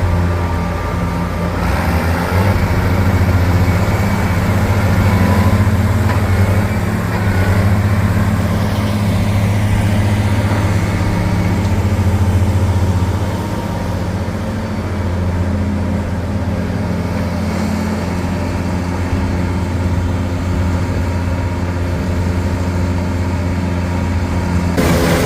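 A vehicle engine running steadily with a low, even hum, dipping a little in level about halfway through.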